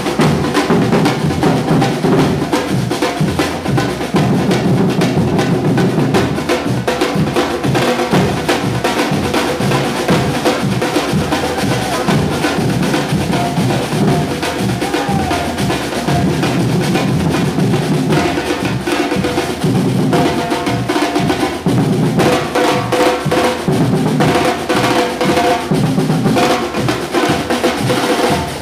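Afro-Brazilian batuque percussion ensemble drumming, a dense rhythm of many drums struck together without pause, with a steady pitched note held underneath.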